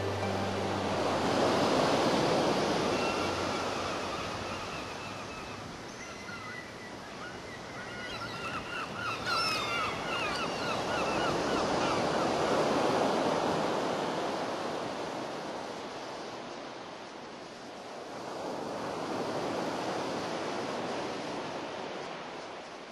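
Ocean surf: waves washing in, the rush swelling and fading about three times. A flurry of short, high chirping calls comes about halfway through.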